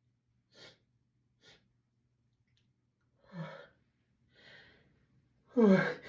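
A person's breathing as a sneeze builds: two short sharp sniffs in the first second and a half, then gasping breaths, the loudest near the end with a voice in it and a falling pitch.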